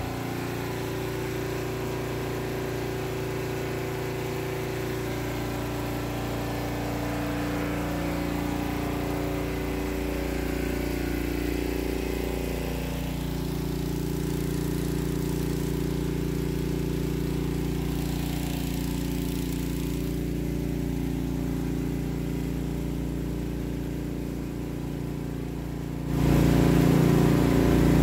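Motor of a water pump running steadily, pumping floodwater out of a flooded basement through a hose; it grows louder near the end.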